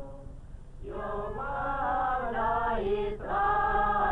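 A choir singing slow, held notes, coming in about a second in after a quieter start.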